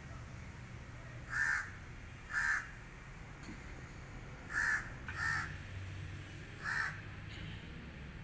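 A crow cawing: five short caws, unevenly spaced, two in the first few seconds and three more close together later on.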